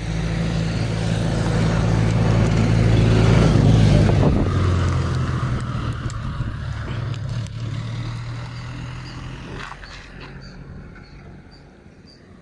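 A small van-type utility vehicle drives past on a concrete road. Its engine and tyre noise grows louder, the engine note drops in pitch as it passes about four seconds in, and then it fades away.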